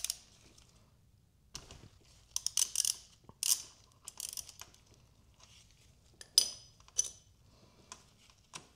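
Hand tools clicking and clinking on the oil screen screw plug of a 2024 KTM 500 EXC-F engine case as it is unscrewed and pulled out with the oil screen. Scattered light clicks and short scrapes, the loudest a single ringing metal clink late on.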